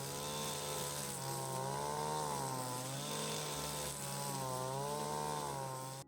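Small petrol engine of a garden power tool running hard, its pitch swaying up and down every second or so. It cuts off abruptly at the end.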